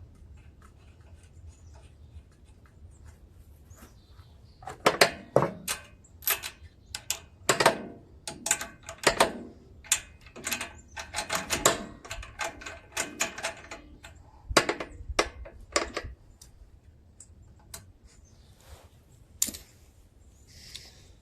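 Irregular sharp metallic clicks and knocks of hand tools being worked on a small engine, clustered from about five seconds in to about sixteen seconds, then a single click a few seconds later.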